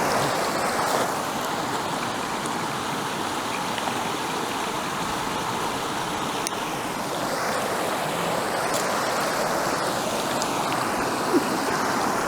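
Water rushing steadily over a small waterfall in a mountain river, close by.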